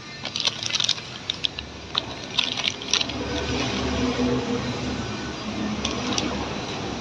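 Sharp metallic clicks and clinks, like hand tools and metal parts being handled, during the first three seconds, then a low steady hum.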